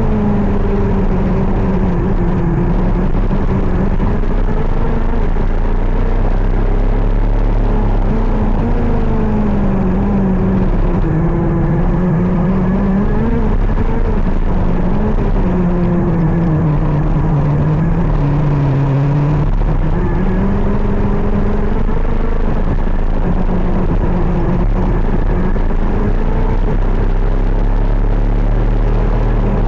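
KZ 125 shifter kart's 125 cc two-stroke single-cylinder engine running continuously, its pitch slowly sinking and rising, with a sudden jump up in pitch a little past two-thirds of the way through.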